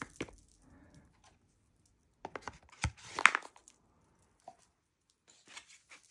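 A cardboard tarot card box and its cards being handled: short bursts of scraping, rustling and clicks, the loudest cluster about three seconds in, with quiet gaps between.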